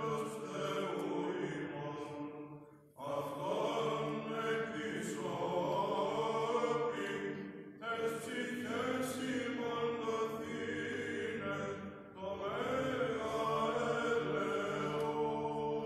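Men's choir of Orthodox chanters singing Byzantine chant, sustained notes in long phrases broken by short pauses about 3, 8 and 12 seconds in.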